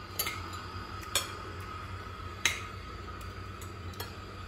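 Forks and spoons clinking against ceramic plates while eating: a handful of sharp clinks, the loudest about two and a half seconds in, over a faint steady high tone.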